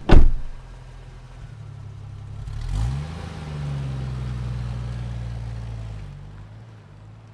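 A car door slammed shut, then the car's engine revs up and runs steadily for a few seconds before fading out.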